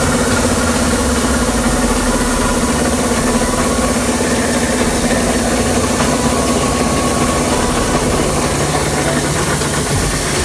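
Kubota combine harvester's engine and machinery running steadily, its note shifting lower near the end.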